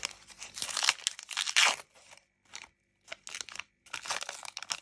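Panini Adrenalyn XL trading-card booster pack being torn open, its wrapper crinkling and crackling in irregular bursts, loudest in the first two seconds, then a short pause and lighter crinkling.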